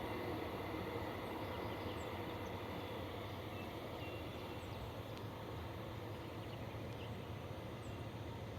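Freight train heard at a distance, a steady low rumble slowly fading as it moves away, with a few faint bird chirps.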